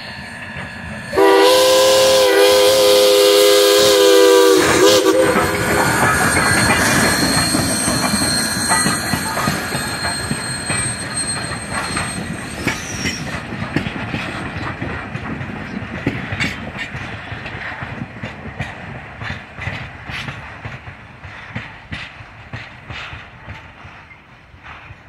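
Baldwin No. 26 steam locomotive sounding its Central Railroad of New Jersey three-chime whistle in one long blast of about three and a half seconds, starting about a second in. The locomotive and its coach then pass close by, wheels clicking over the rail joints. The sound fades as the train moves away.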